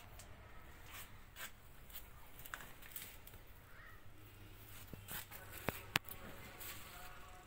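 Faint scattered clicks and light footsteps from a phone being carried around by hand, over a faint low hum, with two sharper clicks about six seconds in.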